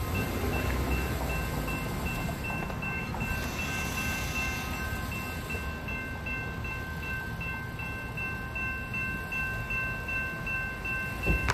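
General Signals type-2 electronic railroad-crossing bell ringing, a high ding repeated at an even rapid rate as the crossing activates and its gates come down. There is a low rumble underneath and a short thump near the end.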